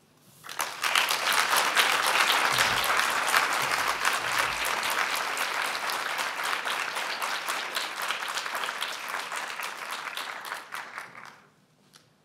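Audience applauding, many people clapping. The applause swells in about half a second and dies away about a second before the end.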